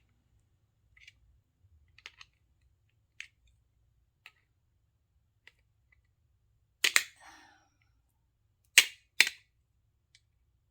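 Metal doorknob parts clicking and clacking as they are handled and worked apart: a few faint ticks, then three sharp clacks, the last two close together.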